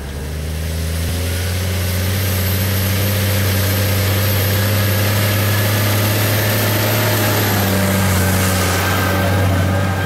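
New Holland T7050 tractor's six-cylinder diesel engine running steadily under load while pulling a plough, a low, even drone.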